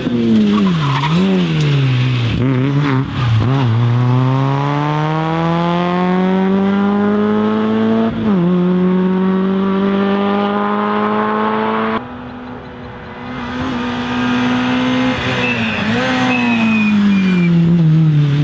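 Rally car engine running hard. It blips and dips in pitch for the first few seconds, then pulls a long rising note, shifts up about eight seconds in and climbs again. About two-thirds through, the sound switches abruptly to another rally car's engine, which holds its note and then falls away as it slows.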